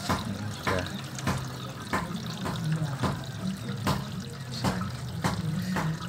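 Water running out through a twin-tub washing machine's drain valve and pipe, flowing freely now that the clog of settled dirt has been cleared. Under it a steady low hum and a regular tick about every two-thirds of a second.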